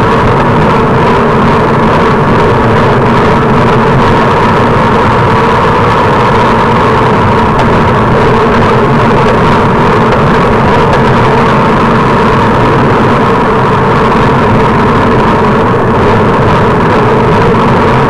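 Steady rushing of wind and road noise on the microphone of a bike-mounted camera while riding a road bicycle at speed.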